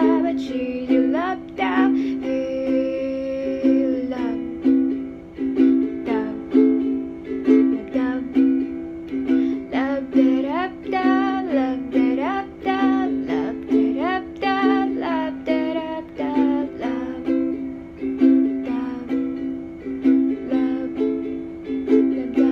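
Ukulele strummed in a steady rhythm of chords, the instrumental outro of a song after its last sung line. A wordless voice hums a wavering melody over it in places.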